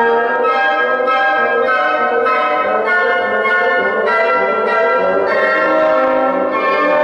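Wind dectet of flutes, oboes, clarinets, horns and bassoons playing a fast movement, with full sustained chords changing about every half second.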